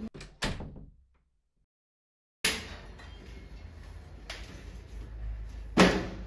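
A door bangs shut just under half a second in and the sound cuts to dead silence; after a sharp knock about two and a half seconds in, room tone returns, and near the end a door slams shut, the loudest sound.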